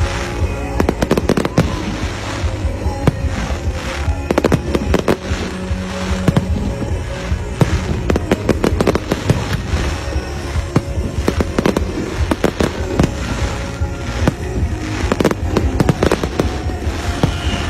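Fireworks display: many bangs and crackles going off in rapid, continuous succession, with music playing underneath.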